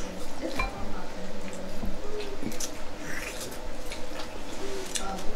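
Scattered clicks, clinks and wet sounds of a seafood boil being eaten close to the microphone: food and shells handled in sauce, with a few dish or cutlery knocks.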